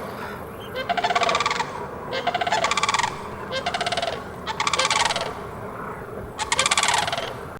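Crane calling: a series of about five trumpeting calls, each under a second long, with a rapid rattling pulse running through each.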